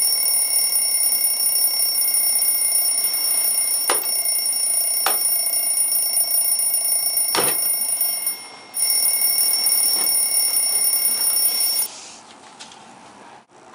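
Alarm clock ringing with a steady, high-pitched ring, with a short break about eight seconds in, then stopping about twelve seconds in. A few faint knocks sound while it rings.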